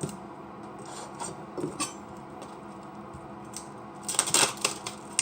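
Kitchen knife cutting through a raw onion on a cutting board: scattered knocks of the blade on the board, with a quick cluster of cuts about four seconds in. The knife is not cutting well.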